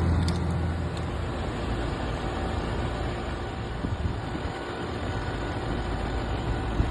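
Mobile home air conditioning system running just after being switched on: a steady whoosh of fan and compressor noise, with a low hum that drops away about a second in.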